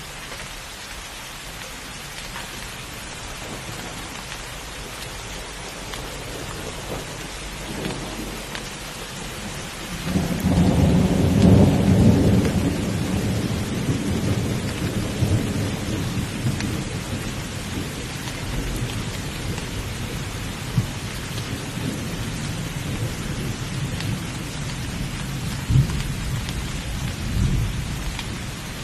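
Steady rain falling in a thunderstorm. About ten seconds in, a long roll of thunder breaks in, loudest at its start, then rumbles slowly down, with two short, sharper cracks later on.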